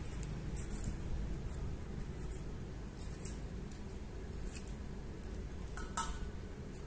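Small kitchen handling noises: faint, irregular high ticks over a low, steady background rumble, and one light clink with a short ring about six seconds in.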